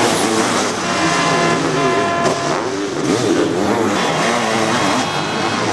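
Sidecar motocross outfits' engines revving hard on the track, several engines at once, their pitch climbing and dropping as the throttle opens and closes.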